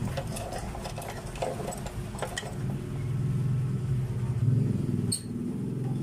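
An engine running with a steady low hum that swells for a couple of seconds and then drops away sharply about five seconds in, with a click. Light clinks of metal being handled come in the first two seconds.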